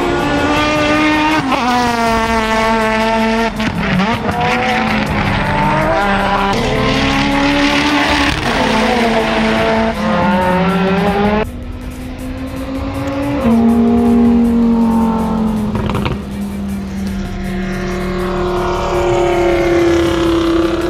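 Time attack race car engines at hard throttle, passing one after another. Each revs up and then falls sharply at a gear change several times.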